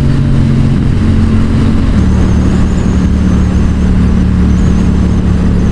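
Yamaha XSR700's parallel-twin engine through a Yoshimura R77 carbon exhaust, running steadily under way, fitted with a booster plug that richens the fuel mix so it no longer runs lean. About two seconds in the engine note changes and settles to a lower steady pitch.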